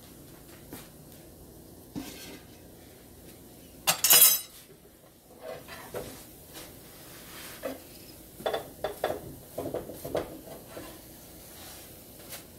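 Kitchen clatter of dishes and utensils as lachha parathas are lifted off a flat griddle (tawa) and plated, with one loud clatter about four seconds in, then a run of short, light knocks and clinks.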